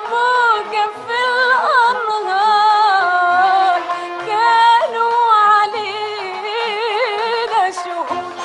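Old recording of Egyptian classical song: a female voice sings long, ornamented melismatic lines with wavering pitch over string ensemble accompaniment.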